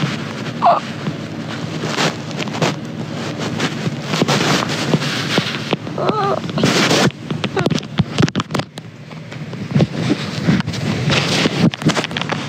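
Handling noise: the phone's microphone rubbing and brushing against cloth, a rustling hiss with scattered clicks and knocks, and a couple of brief vocal sounds.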